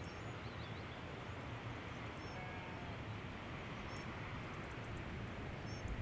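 Steady rush of a distant waterfall, with faint, short, high bird chirps over it.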